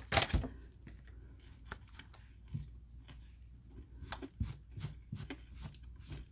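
Tarot cards being handled on a cloth-covered table: a quick rustle at the start, then a string of irregular short taps and flicks as the cards are moved and shuffled.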